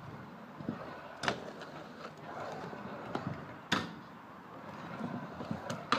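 Scooter wheels rolling on skatepark ramps, with three sharp clacks about two and a half seconds apart.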